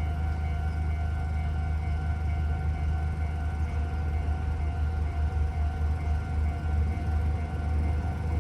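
Railway level crossing alarm ringing steadily, over a continuous low rumble.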